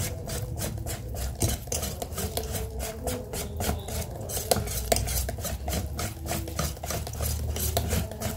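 Wire whisk beating thick mochi batter in a stainless steel pot, fast even strokes about four to five a second, the wires scraping and clicking against the pot. The batter is being whisked until it is thick enough.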